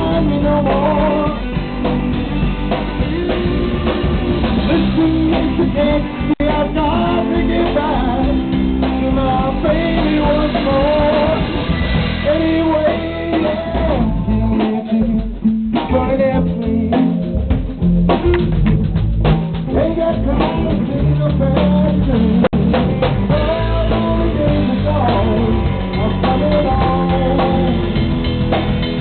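Live blues band playing: a male singer over electric guitar and a drum kit, all playing continuously.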